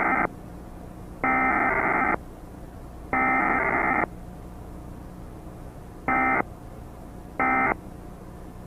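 Emergency Alert System SAME digital data bursts, buzzy and distorted from repeated re-recording, over a steady low hum and hiss. Three longer bursts about a second apart match the header, and after a pause three short bursts match the end-of-message code.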